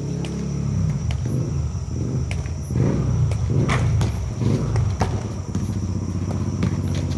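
Small motorbike engine running at low speed as it rides in, its pitch rising and falling, with several sharp knocks of a basketball bouncing on the concrete court.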